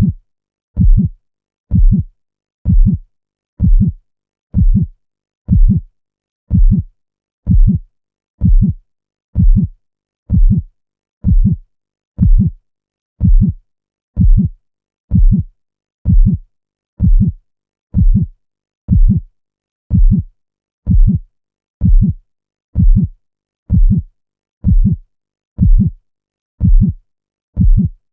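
Loud heartbeat sound effect: a steady, deep thump about once a second, repeating evenly.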